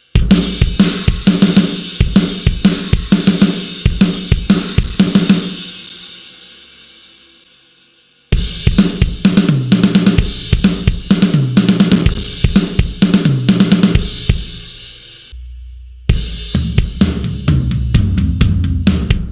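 Sampled acoustic drum kit from The Blasting Room Signature Series Drums Kontakt library, playing programmed grooves of kick, snare, hi-hat and cymbals. The first groove stops about five seconds in and its cymbals ring out for a few seconds. A second groove starts about eight seconds in and stops near fifteen seconds. A faster, denser pattern with a low boom under it starts about a second later.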